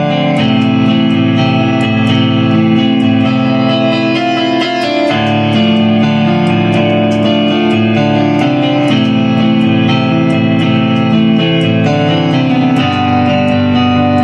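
Solo instrumental music played without drums: held chords with sharp note attacks over them, changing every second or so.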